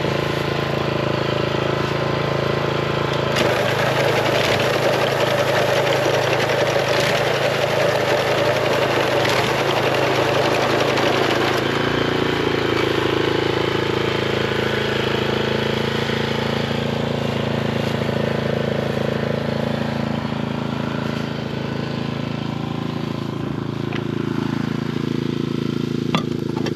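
Engine of a rice harvesting machine running steadily, with a louder rattling, rushing noise over it from about three to twelve seconds in. A sharp click comes near the end.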